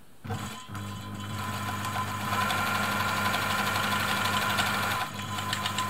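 Elna Air Electronic sewing machine running and stitching through fabric: a steady motor hum with the needle mechanism going, starting a moment in and building up speed over the first two seconds, with a higher whine in the middle stretch.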